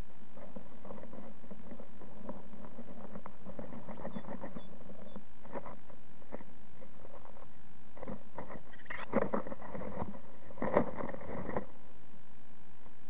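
A great tit shifting and scratching about in its nest lining inside the nest box, with soft rustles, scrapes and small clicks over a steady background hiss. The scraping is loudest from about nine seconds in.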